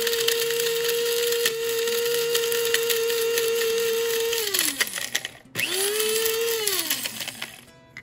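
Electric blade coffee grinder grinding dried porcini mushrooms into powder: a steady motor whine that winds down about four and a half seconds in. It is then pulsed once more, spinning up and winding down again near the end.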